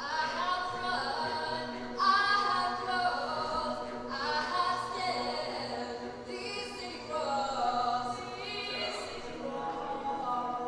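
A mixed-voice high school chamber choir singing a cappella, its phrases swelling in anew every couple of seconds over a held low note.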